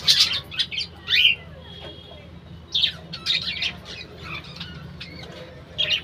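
A flock of budgerigars chirping and squawking, in bursts of sharp calls at the start, about halfway and again near the end.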